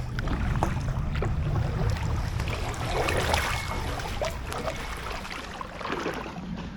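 Paddle strokes in canal water beside a packraft: splashing and dripping as the blades dip in and lift out, with a low rumble in the first couple of seconds.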